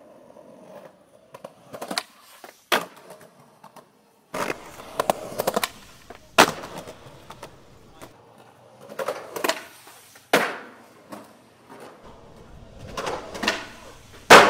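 Skateboard wheels rolling on concrete, broken by a series of sharp clacks and slaps of the board, the loudest near the end.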